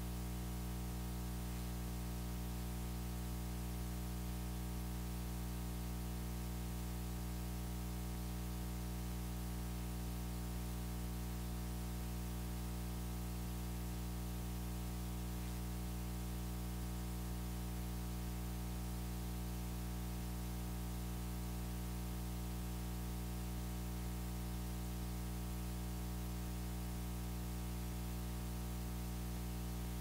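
Steady electrical hum with a constant hiss, unchanging throughout, typical of mains hum picked up in a sound system or recording line.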